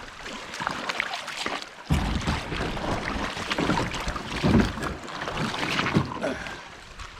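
Canoe at the shoreline: scattered knocks and scrapes of the boat and gear with water sloshing, and gusts of wind rumbling on the microphone about two seconds in and again later.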